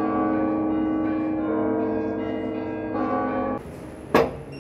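Church bells ringing, several bells sounding together, with new strokes about every second and a half. The ringing stops abruptly about three and a half seconds in. Near the end comes a single sharp clack from an iron ring handle on a wooden door.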